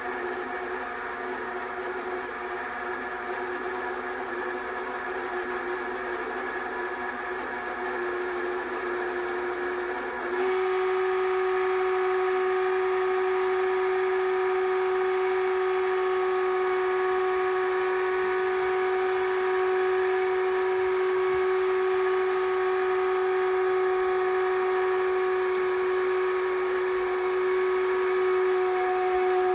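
Film projector running: a steady motor whine made of several even tones. It steps up louder about a third of the way in and then holds steady.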